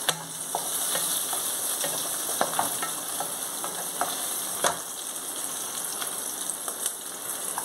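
Pumpkin seeds and curry leaves sizzling in hot desi ghee in a metal pan, with a steady hiss. The seeds are stirred with a wooden spatula, and scattered sharp clicks break through the sizzle.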